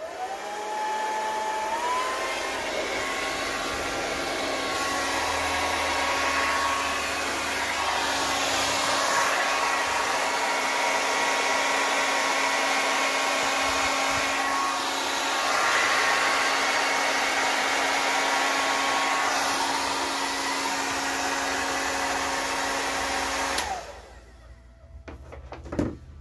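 Handheld hair dryer running steadily, its pitch rising over the first couple of seconds. It switches off shortly before the end, followed by a single knock.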